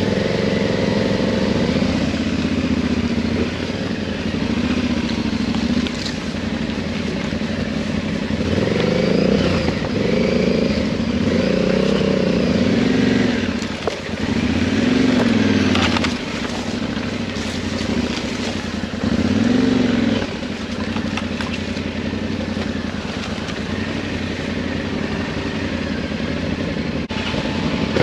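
Motorcycle engine running at low speed over a rough dirt trail, with a run of short throttle blips, each rising and falling in pitch, from about nine to twenty seconds in.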